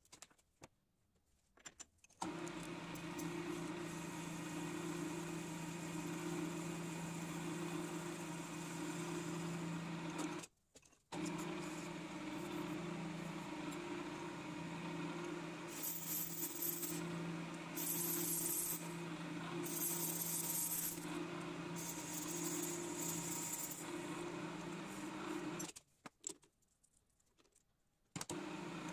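Metal lathe running with a steady motor and gearbox hum, its chuck spinning as a black bored fitting is turned, with on-and-off hissing bursts from the cutting tool partway through. The lathe stops three times, near the start, briefly in the middle and near the end.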